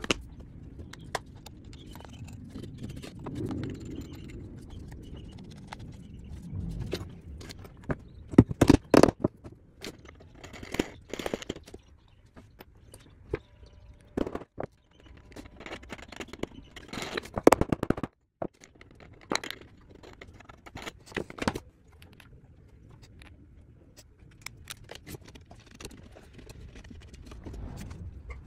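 Hands fitting the plastic parts of a 3D-printed router plane together, with bursts of sharp knocks from a wooden mallet tapping parts into place. The loudest knocks come about a third of the way in and again past the middle.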